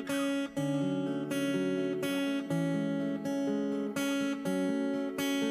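Acoustic guitar strumming chords in an instrumental passage, without singing.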